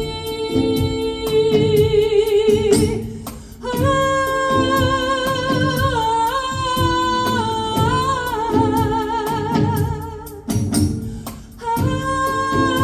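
Live ensemble music: a high, sustained melody line with vibrato, moving in steps between long notes, over a steady rhythmic pattern of low struck notes from a hang and light regular percussive ticks. The melody drops out briefly about three seconds in and again near the end.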